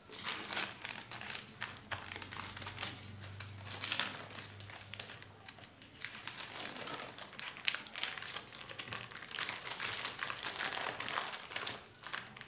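Greased butter paper crinkling and rustling in irregular crackles as hands press and fold it to shape a soft slab of food underneath.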